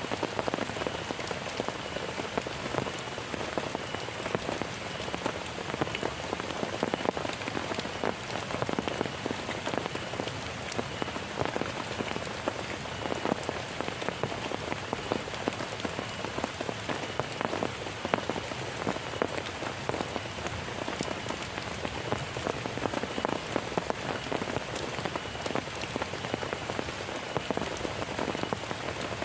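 Heavy rain falling steadily, a dense, even patter of countless drops hitting surfaces.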